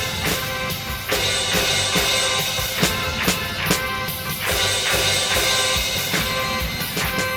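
Disco-style Christmas music: a steady drum-kit beat with bass drum and snare under held instrumental chords.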